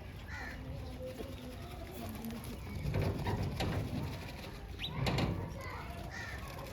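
Pigeons cooing in low, soft tones, with two louder rustling bursts about three and five seconds in.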